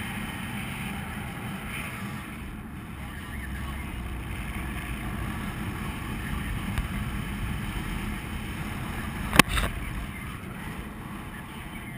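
Wind rushing and buffeting over the camera's microphone as a paraglider flies, with a single sharp knock near the end.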